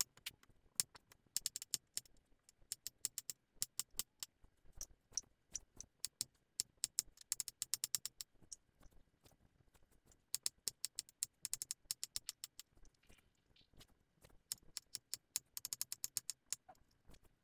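Knife chopping peeled potatoes on an acacia end-grain wooden cutting board: runs of quick, sharp taps as the blade strikes the board, broken by a couple of short pauses.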